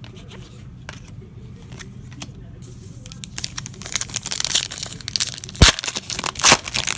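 A foil trading-card pack wrapper being torn open and crinkled. The noise starts about two and a half seconds in and grows denser, with two sharp cracks near the end. Before that there are only light clicks of cards being handled.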